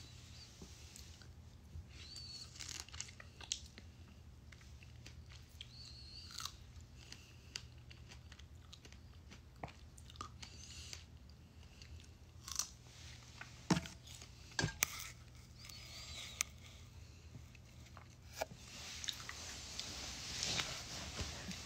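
Close-up chewing and biting of a piece of fruit, with scattered small mouth clicks over a faint steady low hum. Fabric rustling rises near the end.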